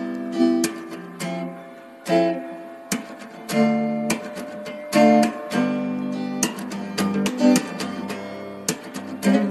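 Background music of acoustic guitar strumming and picking chords.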